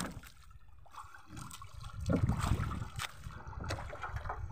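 Sea water lapping and splashing against the hull of a small outrigger fishing boat, with a few light knocks.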